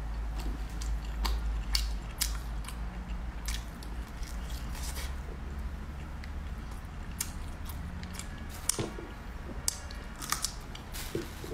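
Close-miked chewing and biting of crispy roast pork, with irregular sharp crunches and crackles, a few louder ones near the end. A steady low hum runs underneath.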